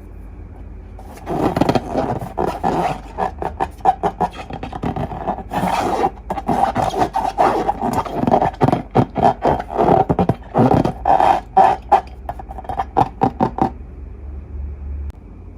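Slime and rubber balloons being squeezed and rubbed by hand: a dense run of rapid squeaks, crackles and scrapes that starts about a second in and stops near the end.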